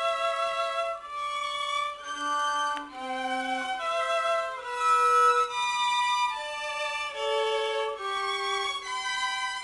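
Two violins playing a slow tune together, long bowed notes changing pitch about every half second to a second.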